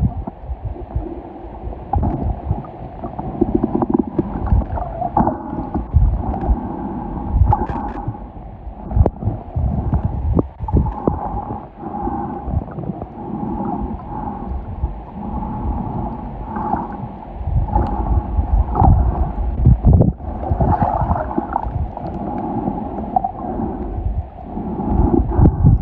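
Muffled underwater sound picked up by a submerged camera: water moving and gurgling, with irregular low rumbles and thumps.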